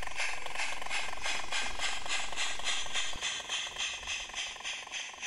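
16mm-scale model steam locomotive chuffing in an even rhythm, about four beats a second, over a steady hiss as it pulls away with its passenger coaches. The sound gets fainter and more uneven about three seconds in as the engine moves off.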